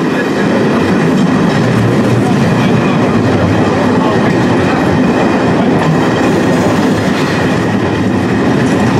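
Train running at speed, heard from on board a passenger coach of an 071 class diesel-hauled train: a loud, steady rumble of wheels on the rails.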